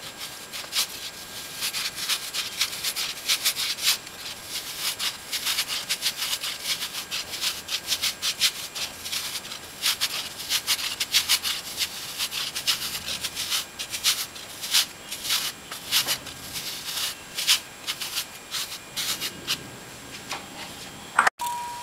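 A block of cheese being grated on a flat handheld metal grater: quick, repeated scraping strokes, easing off near the end.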